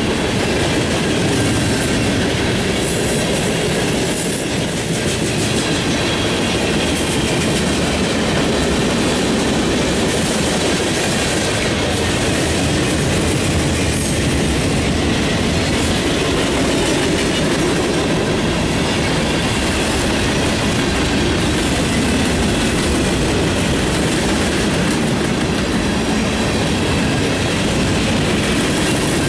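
Freight cars rolling past close by: a steady, unbroken noise of steel wheels running on the rails.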